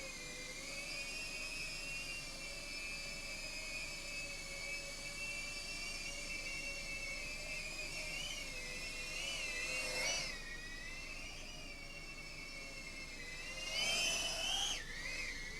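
Mobula7HD tiny whoop drone's motors and propellers whining steadily in flight, the pitch wavering with small throttle changes. The whine swells louder and higher twice, about ten seconds in and again near fourteen seconds, as the throttle is punched, then dips lower just before the end.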